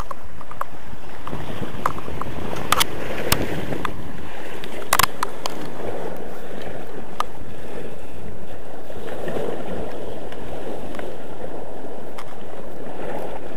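Wind buffeting the microphone over rough sea surf washing against rocks, a steady rumbling noise, with a few sharp clicks scattered through it.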